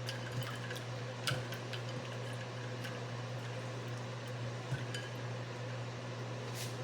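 Scattered light clicks and taps of utensils and dishware while a plate is being garnished, over a steady low hum.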